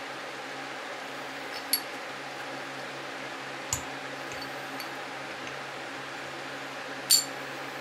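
Steel transmission gears from a Toro Powershift 824 snow thrower clinking against each other as they are handled and fitted together: three short metallic clinks, about two seconds in, about four seconds in, and a louder one near the end, over a steady background hiss.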